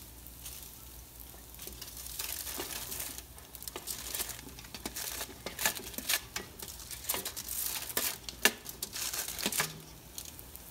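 Aluminium foil crinkling and crackling as cooked potato slices are slid off a foil-lined tray into a pot, the slices pattering in over a light sizzle of frying onions. The crinkling starts about two seconds in and runs on in quick irregular crackles until near the end.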